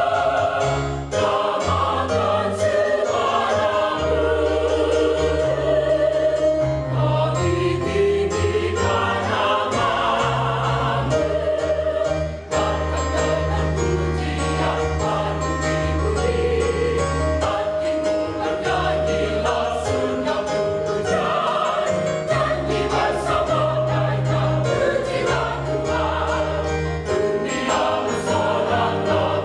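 Mixed choir of men and women singing, voices held on sustained notes over a line of low held notes that change every second or two.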